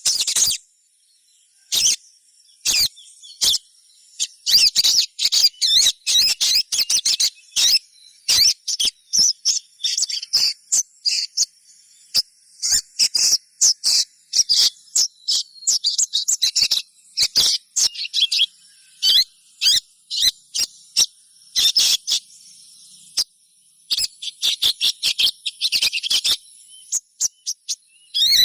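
Young sogon, a sunbird, chirping: rapid runs of short, high-pitched cheeps with brief pauses about a second in and again near the end. This is a fledgling's call, used as a lure to set other sogon singing. A faint, steady, high whine runs underneath.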